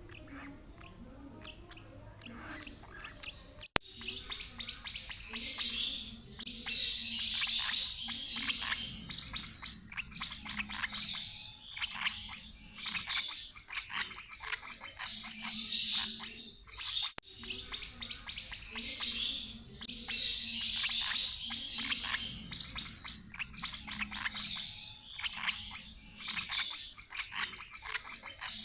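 Lovebirds chirping and chattering in quick, dense runs of short calls, faint at first and much louder from about four seconds in.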